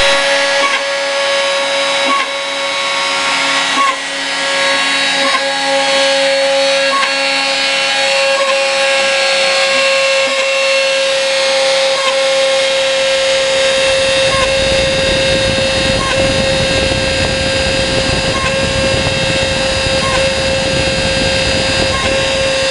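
Homemade CNC engraving machine milling a printed circuit board: a steady motor whine with small regular ticks about every 0.7 seconds. About 14 seconds in, a rougher, lower grinding noise joins.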